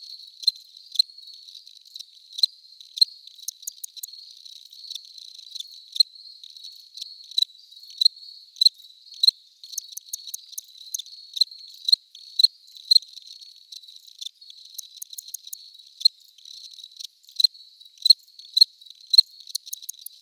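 Crickets chirping: a steady high trill with short, sharper chirps repeating about one or two times a second.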